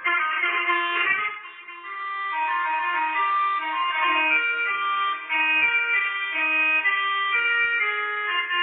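Melodica (pianika) playing a telolet bus-horn style melody in reedy held notes that step from pitch to pitch, with a short break about a second in.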